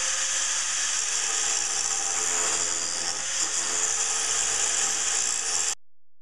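Electric angle grinder sharpening the cutting edge of a steel mower blade still bolted to the deck. The motor holds a steady whine under the loud hiss of the grinding. It cuts off suddenly near the end.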